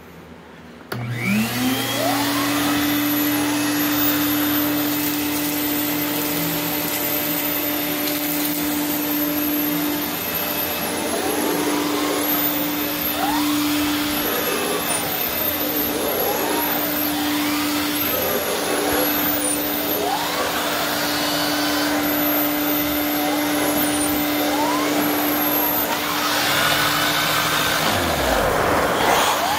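Vacmaster vacuum cleaner with a turbo nozzle switched on about a second in, its motor rising quickly in pitch and settling into a steady hum with a high whine over it, then running on.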